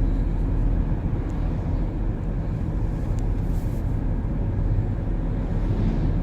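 Steady low rumble of a car driving: engine and road noise heard from inside the vehicle, with a few faint ticks.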